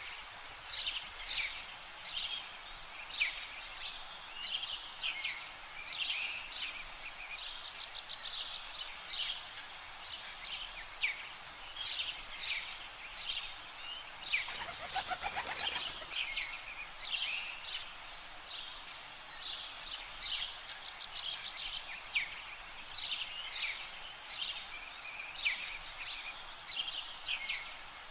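A chorus of birds chirping and calling, many short high notes in quick succession, over a steady background hiss, with a brief rustling burst about halfway through.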